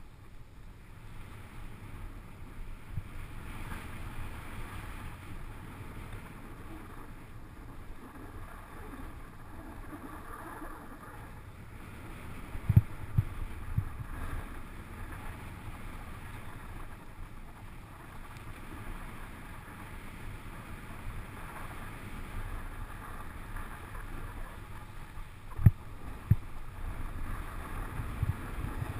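A snowboard slides over groomed snow with a steady scraping hiss, under wind rumble on the camera's microphone. A few dull low thumps come about halfway through and again near the end, the loudest a little before the end.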